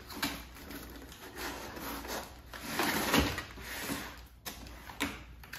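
Cardboard scraping and rubbing as a boxed e-bike battery is worked out of its cardboard packing, loudest about three seconds in, with a sharp knock about four and a half seconds in.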